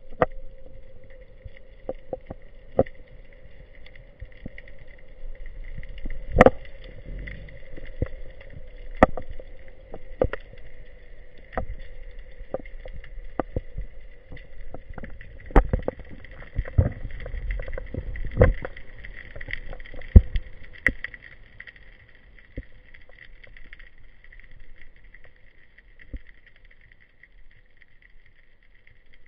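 Underwater sound picked up by a diver's camera: irregular sharp clicks and knocks over a low rumble, with a steady high hum throughout and a lower hum that fades out about two-thirds of the way through.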